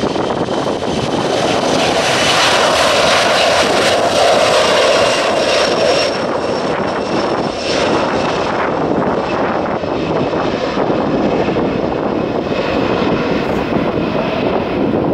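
Boeing 737-300's CFM56 turbofan engines spooling up to takeoff thrust as it starts its takeoff roll: the sound rises over the first couple of seconds, then runs loud and steady with a high fan whine, easing a little after about six seconds as the aircraft moves away.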